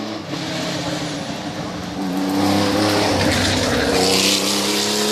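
Classic rally car's engine accelerating hard, its pitch climbing; about two seconds in it drops with an upshift and climbs again, getting louder as the car comes closer.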